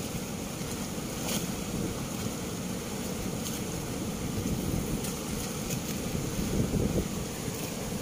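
Turbulent water rushing out through the open sluice gates of a river barrage, a steady, deep rush, with wind buffeting the microphone.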